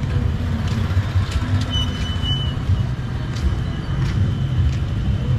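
Steady low rumble of a moving vehicle with road noise, plus a thin high squeal a couple of seconds in.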